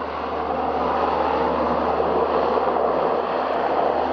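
Steady rushing roar of jet aircraft engines, building a little over the first second and then holding level.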